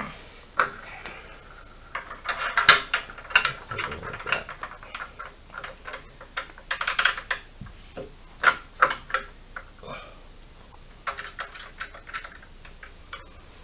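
Irregular clicking and clattering of metal hardware and a small wrench handled while fitting a stabilizer onto an indoor cycling bike's frame, in several short flurries.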